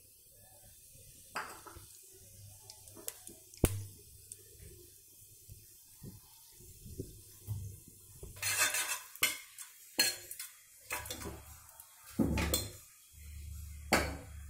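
Metal clinks and knocks of kitchen utensils against an aluminium pressure cooker while whole spices sit in oil in the pot. There are a few sharp clinks early, then a busier run of clatter in the second half, loudest about 12 s and 14 s in.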